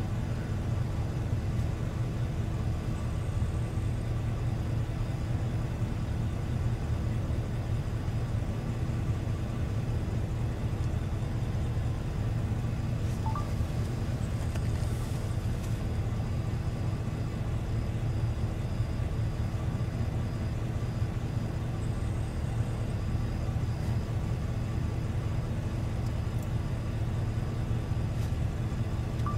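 Steady low hum of an idling vehicle engine, with a thin steady tone above it and no changes throughout.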